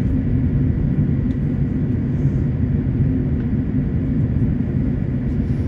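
Steady low rumble inside an airliner cabin on the ground after landing, from the engines at taxi idle and the cabin air, with a faint steady high whine.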